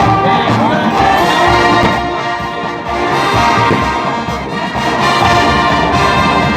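College marching band playing, with trumpets and trombones carrying the tune over a steady drum pulse.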